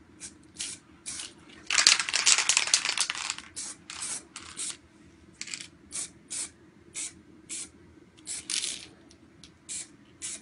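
Aerosol spray paint can hissing in short sprays: one longer spray of about a second and a half about two seconds in, then many quick puffs.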